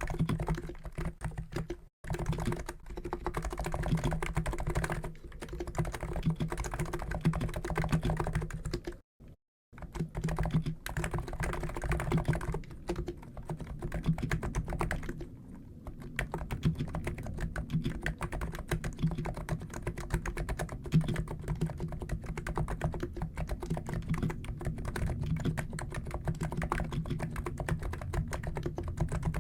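Fast, continuous typing on a COX Endeavour keyboard with Noppoo NIZ electro-capacitive switches (50 g), a dense stream of soft key strokes. It pauses briefly about two seconds in and again around nine seconds in.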